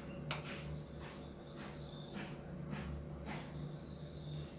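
Faint, repeated high chirps of a bird in the background, over a low steady hum.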